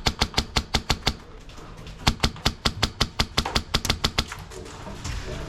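Airsoft gun firing a rapid string of shots, about seven sharp cracks a second, which stops about four seconds in.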